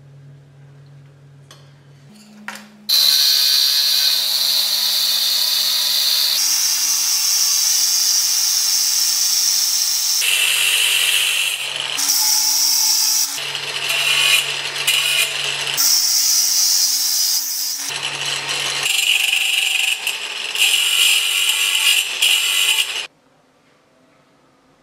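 Angle grinder's abrasive disc cutting through a steel jigsaw blade clamped in a vice. A loud, high grinding hiss starts about three seconds in, changes tone abruptly several times, and stops suddenly near the end.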